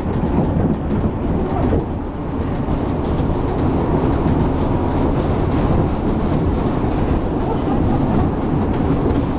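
Interior running noise of a Shonan Monorail car under way: the steady low rumble of its rubber-tyred suspended running gear moving along the track beam.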